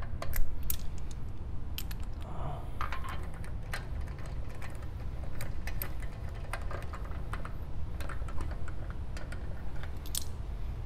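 Irregular small metallic clicks and ticks of lug bolts being handled and threaded into a car wheel hub by hand, over a steady low background hum.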